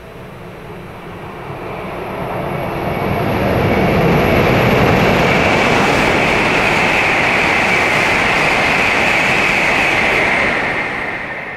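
Hokuriku Shinkansen E7/W7-series high-speed train passing through the station without stopping. A rush of air and wheels on rail builds over the first few seconds, holds loud with a strong high hiss, then drops away near the end as the train clears.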